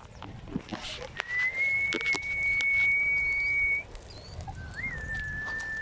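A person whistling two long, steady, high notes, the second a little lower, with a brief upward wiggle at its start.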